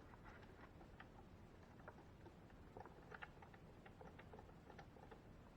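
Near silence, with faint, scattered light clicks and taps.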